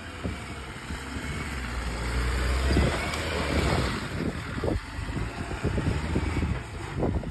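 Mahindra Thar's engine working under load off-road, swelling to its loudest a few seconds in, with short crackles and knocks of sand and gravel throughout.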